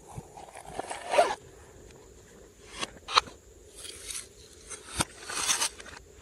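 Slime being squished and kneaded by hand: uneven wet, crackly swells with a few sharp clicks, one about three seconds in and one about five seconds in.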